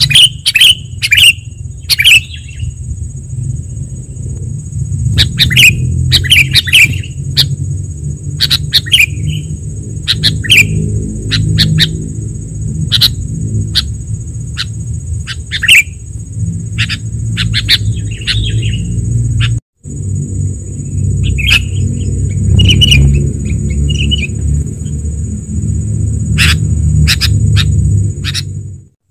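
Sooty-headed bulbul calls from a bird-luring recording: short, sharp chirps repeated every second or so in irregular runs. A steady high whine and a low rumble run underneath, and all of it drops out for a moment about two-thirds of the way through.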